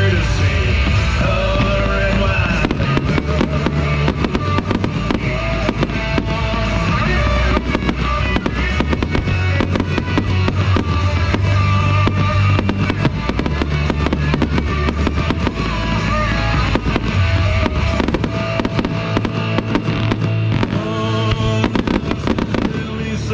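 Aerial fireworks bursting and crackling in rapid, dense volleys over loud rock music from a sound system. The bangs start a couple of seconds in and thin out near the end.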